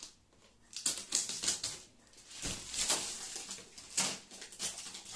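Cardboard shipping boxes being handled and shifted, with irregular rustling and scraping bursts that come several times.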